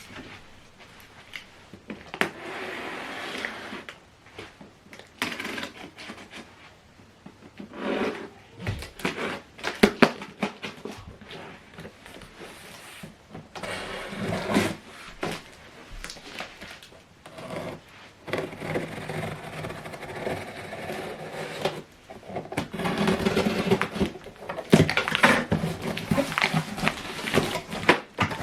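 A cardboard box and its packing being opened and handled: rustling and scraping, with many scattered knocks and clicks.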